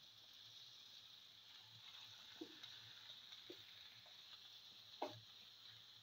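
Faint sizzle of bottle gourd, onion and cumin sautéing in oil, with a few light scrapes and taps of a spatula stirring the pan, the sharpest about five seconds in.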